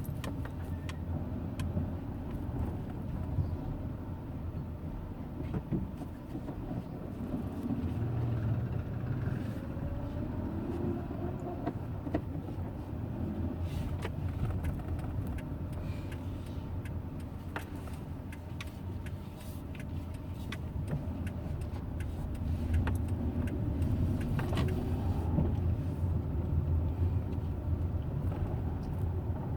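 Hyundai Eon running at low revs: a steady low rumble with faint tones that slowly rise and fall, and a few scattered clicks. The owner is chasing a grinding noise that the car makes at low rpm.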